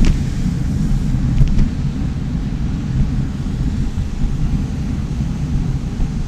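Wind buffeting the microphone of a bicycle being ridden: a steady low rumble.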